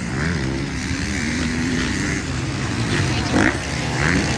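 Motocross bike engines running in a race, their pitch rising and falling as riders work the throttle, with a person's voice talking over them.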